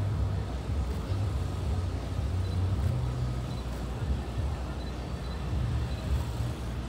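City street ambience: a steady low rumble of road traffic with the murmur of a crowd of people talking and walking.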